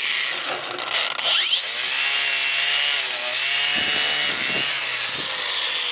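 Cordless grinder scraping carbon deposits off a lawnmower engine's cylinder head. The motor whines steadily over a harsh abrasive scrape, its pitch dipping and wavering as it is pressed into the work.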